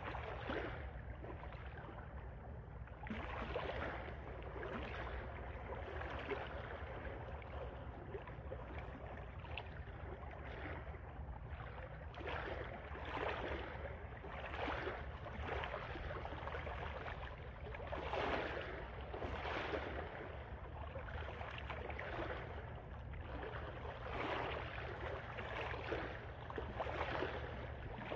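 Shallow tidal water sloshing and splashing in irregular swishes every second or two, over a steady low rumble of wind on the microphone.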